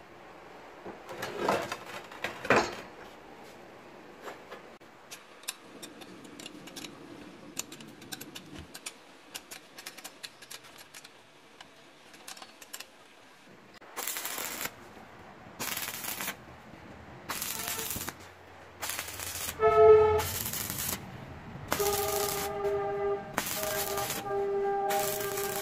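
Two knocks as a steel plate is handled, then a run of light, irregular clicks from a wrench tightening bolts. From about halfway through come about eight short bursts of arc welding tacking the bolt heads to the plate, the loudest near the middle of the run and the later bursts carrying a steady hum.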